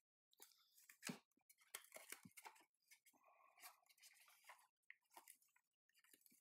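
Faint, irregular crinkling and small clicks of plastic packaging and tape being handled as a small quadcopter, taped down in its box insert, is worked loose.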